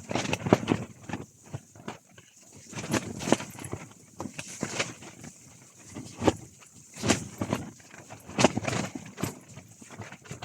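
Footsteps in wet slush and water on ice: uneven steps about one a second, over a steady high hiss.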